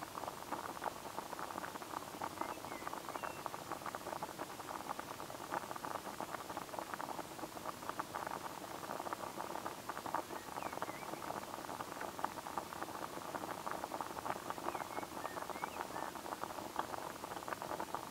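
Water boiling in a small pot on a SOTO Windmaster gas-canister stove: a dense, steady crackle of bubbling.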